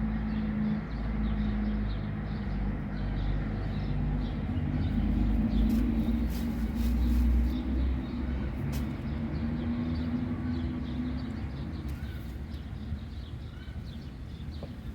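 Steady low hum of a running engine, with scattered faint clicks.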